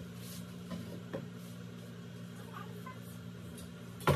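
Metal bed-frame rails being handled: a couple of faint knocks about a second in, then a loud metallic clank near the end, over a steady low hum.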